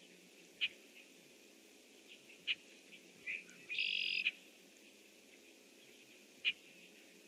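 Red-winged blackbird calling: three single sharp calls spaced a few seconds apart, with a longer buzzy call near the middle.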